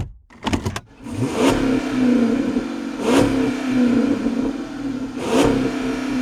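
A sharp click and a few light ticks, then a 2007 Chrysler 300C's Hemi V8 running and blipped three times, each rev rising and falling back quickly.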